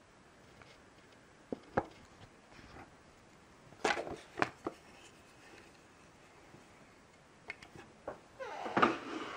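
Handling noise from a small plastic TARDIS model being picked up, tilted and knocked against a wooden tabletop: a couple of sharp clicks a second and a half in, a cluster of knocks about four seconds in, and a scraping rattle near the end.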